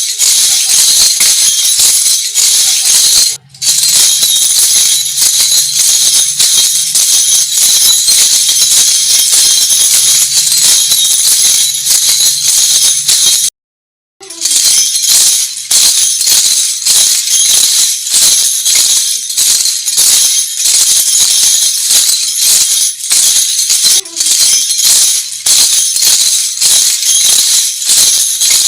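Lezim, the Maharashtrian folk instrument whose metal jingle discs ride on a chain strung across a wooden bow, shaken and clashed in a fast, continuous rhythm of metallic jingles. It drops out briefly twice, most fully for about half a second near the middle.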